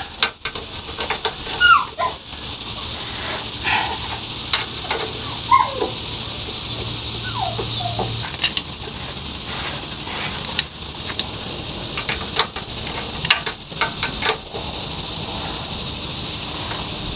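Ratchet wrench on a stubborn rear control-arm bolt: scattered clicks and knocks. Several short, high whines slide down in pitch in the first half.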